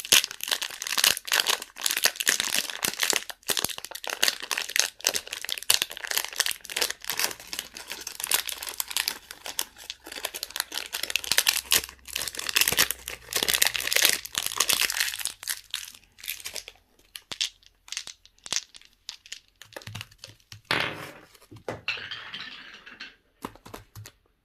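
Plastic candy wrappers crinkling and tearing as they are unwrapped by hand. The crackling is dense for most of the stretch, then thins out into sparser crinkles and stops near the end.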